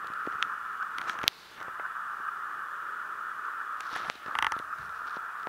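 Small electric motors of a Lego RC paddle-wheel boat running with a steady whir. The whir cuts out for a moment about a second in and then resumes, with scattered small plastic clicks.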